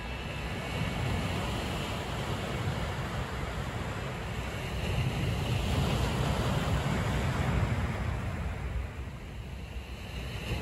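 Sea surf breaking and washing over a boulder shore, with wind on the microphone; the wash swells to its loudest a little past the middle, then eases near the end.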